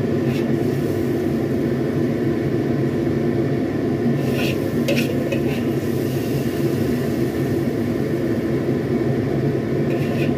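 Metal spatula scraping against an iron wok a few times, mostly between about four and five and a half seconds in, while sauce is scooped out into a bowl, over a steady low hum.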